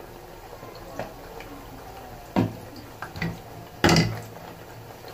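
Kitchen handling noises: a few short knocks as things are set down on the counter, the loudest about four seconds in, over a faint steady hiss.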